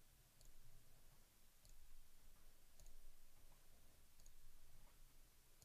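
Faint computer mouse button clicks, one about every second and a quarter, against near-silent room tone.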